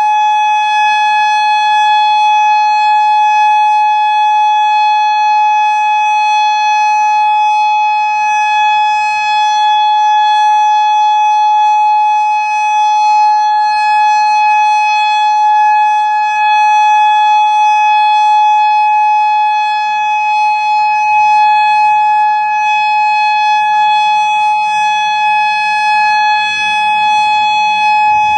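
Federal Signal Modulator 6048 outdoor warning siren sounding its steady Alert tone: one loud, unwavering pitch with no rise or fall. The siren still has blown drivers, by the uploader's account.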